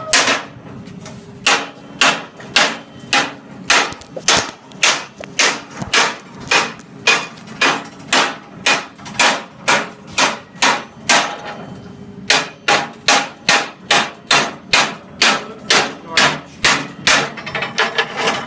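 Steel hammer repeatedly striking a freshly welded steel piece, about two hard blows a second, each with a short metallic ring, pausing briefly about twelve seconds in. The weld is being beaten to test its strength and is holding up: "that's tough".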